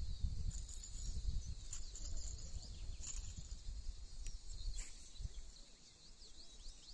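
Steady high-pitched insect buzzing with short bird chirps over it. Wind rumbles on the microphone and dies down over the first few seconds.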